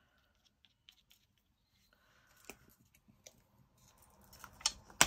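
Small clicks and taps of craft supplies being handled on a tabletop, with two sharp clicks near the end.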